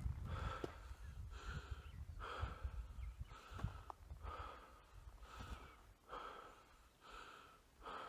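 A man breathing hard while hiking uphill: quick, even breaths in and out, about two a second, growing fainter near the end. Low knocks run under the first half.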